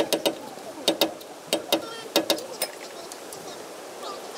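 Steel tool clinking and tapping against the front wheel hub's bearing nut on a Toyota Hilux: about ten sharp metallic clicks with a short ring, coming singly and in quick pairs, then stopping a little over halfway through.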